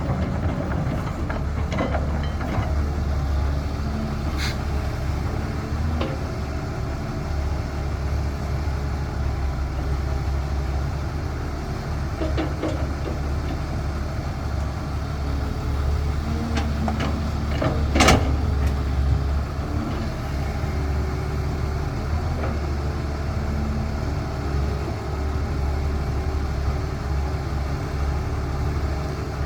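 Caterpillar 320 excavator's diesel engine running steadily, with a few sharp knocks, the loudest about two-thirds of the way through.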